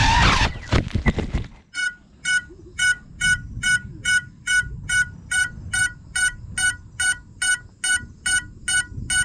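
FPV quadcopter crashing: a few knocks as it hits the ground and its motors stop. Then its lost-model beeper gives short high beeps, about two and a half a second, as the downed drone lies in the grass.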